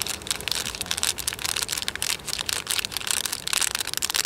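Makchang (grilled intestines) frying in a pan, sizzling with dense, continuous crackling.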